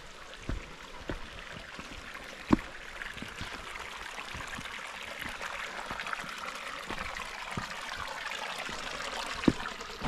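Running water of a stream, growing steadily louder, with regular footfalls on the trail about every half second; one thump about two and a half seconds in stands out as the loudest.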